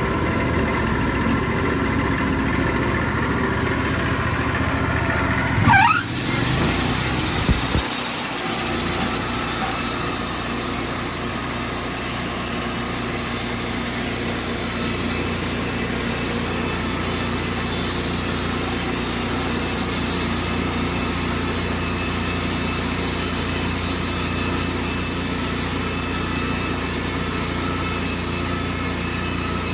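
Wood-Mizer portable sawmill's engine running, with a rising rev about six seconds in, then running steadily at higher speed.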